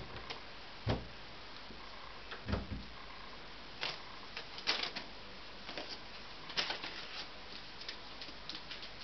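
Puppies shifting about in a plastic dog bed on newspaper: two soft thumps in the first few seconds, then scattered light clicks and rustles in short clusters.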